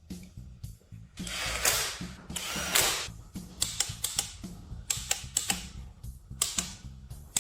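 Mechanical tool work in a workshop: two longer rasping sounds about a second in, then a run of sharp metallic clicks, over soft background music.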